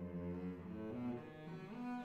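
Background music: a slow melody of long, low bowed-string notes that climbs in pitch after about a second.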